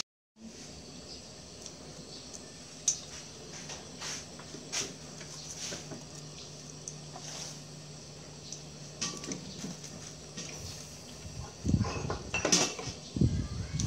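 Small knife paring and scraping the skin off young palm seeds, with scattered light clicks and taps of the blade and peel against a steel colander, and louder knocks and handling near the end.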